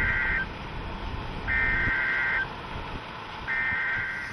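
NOAA weather radio sending its SAME digital alert code: three identical buzzy data bursts about a second long and two seconds apart, the coded header or end-of-message signal of a broadcast warning. Under them runs a low vehicle and wind rumble.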